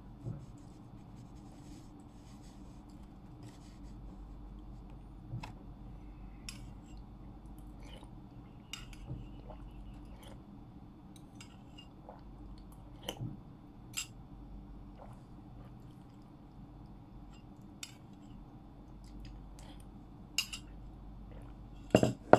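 A metal spoon clinking against a ceramic bowl while eating, in scattered single clicks over a low steady room hum. Near the end comes a louder double knock as the bowl is set down on the desk.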